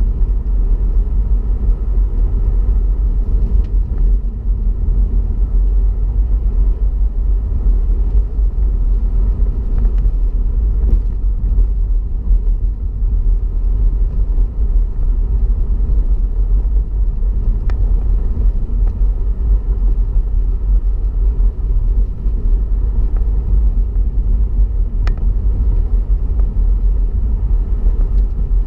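Steady low rumble of a BMW 116i driving on a snow-covered road, heard from inside the cabin: tyre and engine noise, with a few faint ticks.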